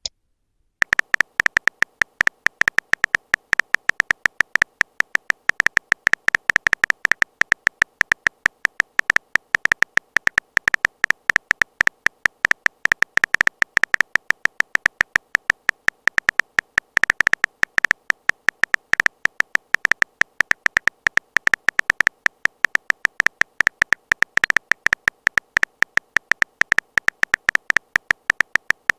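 Rapid, uneven stream of short clicks, a phone keyboard typing sound effect, starting just under a second in and running on without a break.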